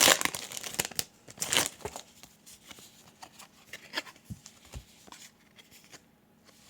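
A trading-card pack's wrapper crinkling and tearing open, loudest in the first second and a half, followed by quieter clicks of the cards being handled.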